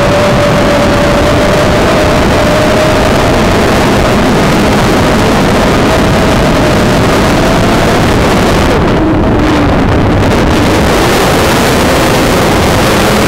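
Multirotor drone's electric motors and propellers whining at a steady, slightly wavering pitch, recorded on the drone itself, with wind rushing over the microphone. The hiss briefly thins about nine seconds in.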